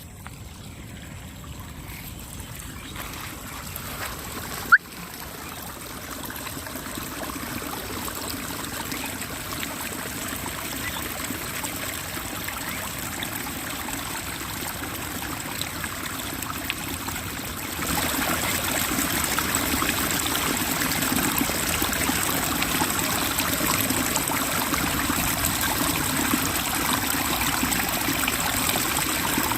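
Water running and trickling steadily, growing louder and stepping up about eighteen seconds in. There is a single sharp click about five seconds in.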